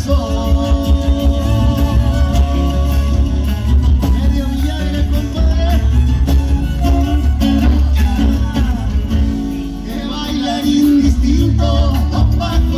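Live folk band playing an Argentine gato: strummed acoustic guitars, violin, electric guitar and drums under a male lead singer, with a heavy bass. The music eases briefly about ten seconds in, then picks up again.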